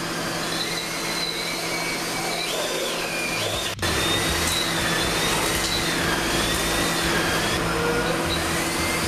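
Cordless drill spinning a paddle mixer through a bucket of thick, latex-like spray-on sound deadener. The motor's whine wavers up and down in pitch as the load changes, with a brief break about four seconds in.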